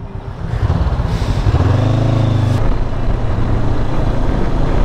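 Motorcycle riding with its engine and steady wind and road noise. About two seconds in, the engine note swells briefly and then drops away abruptly, as at a throttle change or gear shift.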